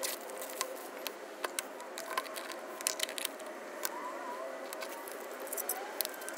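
A cardboard smartphone box being opened and its packaging handled: scattered light clicks, taps and rustles of card and plastic trays.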